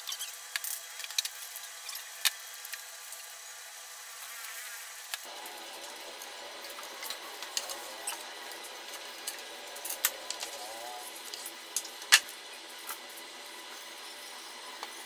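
Scattered knocks and clicks of MDF panels being handled and set down on a worktable, with one sharp knock about twelve seconds in, over a steady hiss.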